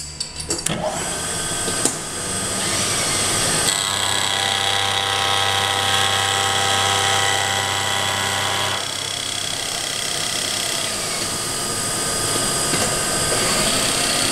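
Milling machine spindle running a cermet-insert face mill, starting about a second in. It makes a dry roughing cut across a wedge blank while the table's rapid-traverse drive feeds it. A deeper hum from the traverse joins in about four seconds in and stops about nine seconds in, while the spindle keeps running.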